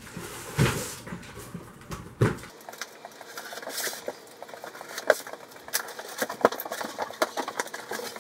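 Large cardboard shipping box being handled on a concrete floor: a few heavy thumps as it is tipped over and set down, then rapid crackling, rustling and clicking of cardboard as its top is opened.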